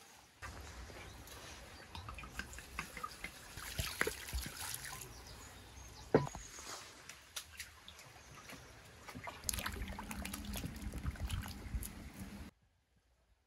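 Water pouring into an enamel bowl of raw beef chunks, filling it, louder over the last few seconds before it cuts off suddenly near the end. A single sharp knock about halfway through.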